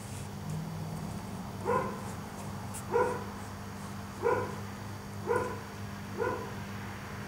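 A dog barking at an even pace: five single barks, a little over a second apart, the first about a second and a half in.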